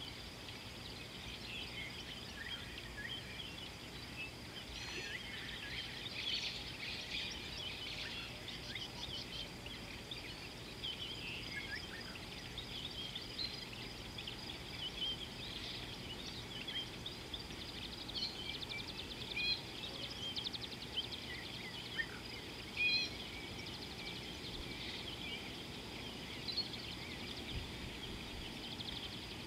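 Birds chirping and calling in many short, overlapping notes over a steady outdoor background hiss.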